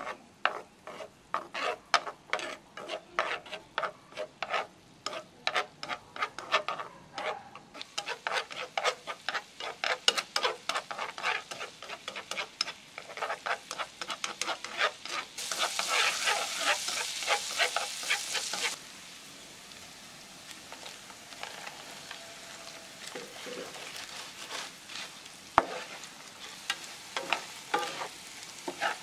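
Butter and minced garlic frying in a nonstick wok as wooden chopsticks stir and tap against the pan, giving a run of sharp clicks a few times a second. About halfway through comes a few seconds of louder, hissing sizzle. After that comes quieter frying with occasional taps as shredded potato is stirred with chopsticks and a wooden spatula.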